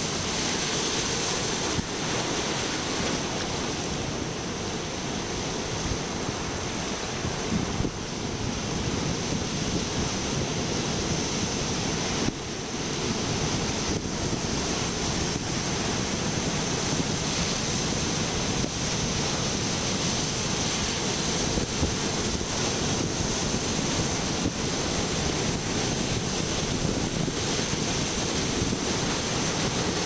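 Pacific Ocean surf breaking over rocks and washing across a rocky shoreline: a continuous rush of white water with no pause.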